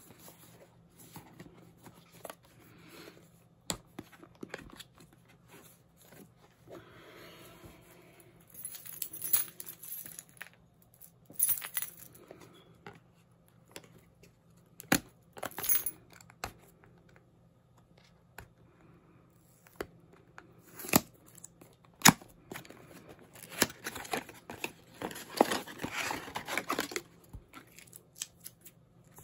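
A small cardboard product box and its paper and plastic packing being opened and handled, rustling and crinkling, with scattered sharp clicks and taps as parts are taken out. The longest spell of rustling comes near the end.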